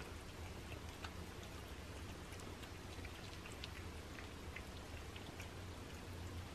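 Cats eating soft flaked fish off paper plates: faint, irregular little clicks of licking and chewing, over a low steady hum.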